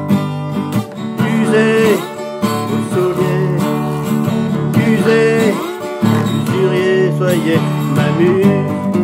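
Steel-string acoustic guitar strummed in a steady rhythm, with a metal slide on the fretting hand playing gliding melody notes over the chords.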